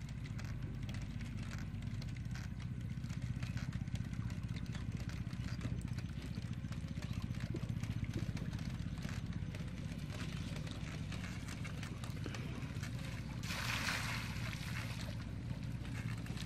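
Steady low engine drone, with a short rushing noise lasting about a second and a half near the end.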